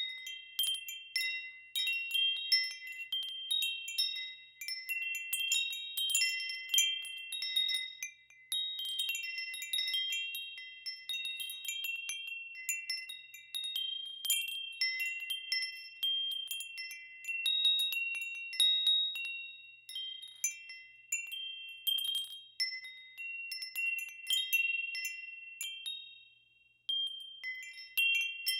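Wind chimes ringing in the wind: irregular, overlapping strikes of a few high notes that ring on and fade, with two brief lulls where the ringing dies away before picking up again.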